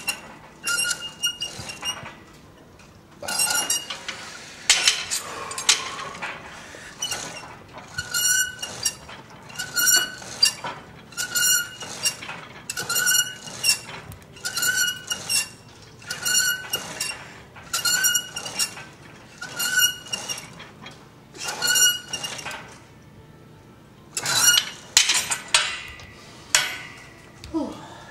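Steel plates of a cable machine's weight stack clinking with each repetition, a short metallic ring that repeats evenly about every one and a half seconds. Near the end come two louder clanks as the stack is let down.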